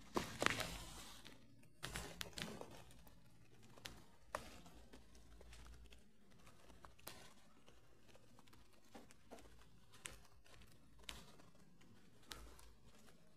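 Faint rustle and crackle in the first second and again about two seconds in, then scattered light clicks and ticks over a quiet background.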